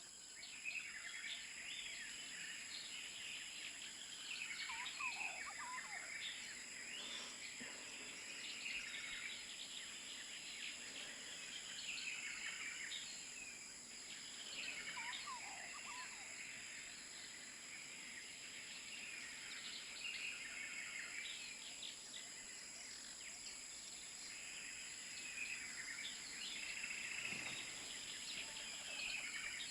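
Faint outdoor nature ambience: birds chirping on and off throughout, over a steady high-pitched hum.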